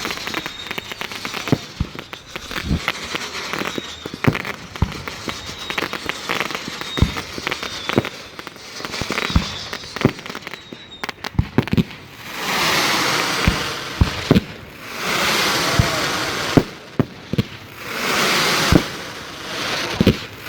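1.3G display fireworks going off: a rapid, irregular series of sharp bangs and booms. From about twelve seconds in, stretches of dense hissing noise, each a second or two long, fill the gaps between the booms.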